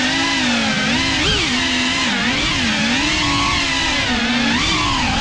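Brushless motors and propellers of a Cinelog 35 cinewhoop FPV drone whining steadily, the pitch swinging up and down with the throttle, with a sharp rise about a second in.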